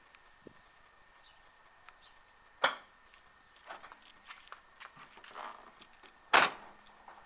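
Ford Mondeo's original central-locking actuators clunking, twice, a little under four seconds apart, as the newly installed remote kit locks and unlocks the doors.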